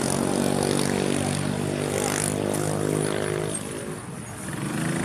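A motor vehicle engine humming steadily in street traffic, fading about four seconds in.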